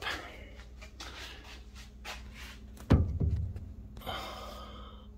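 Rustling and light clicks of handling, with one heavy thump about three seconds in and a short scrape about a second later.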